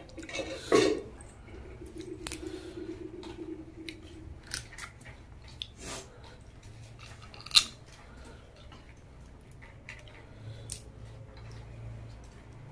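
Close-up eating sounds: crab shell being bitten and cracked apart, with chewing between a handful of sharp cracks, the loudest about seven and a half seconds in.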